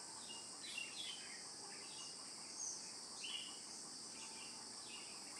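Steady high-pitched insect drone, with short bird chirps scattered through it, about two a second; a slightly louder pair of chirps comes about three seconds in.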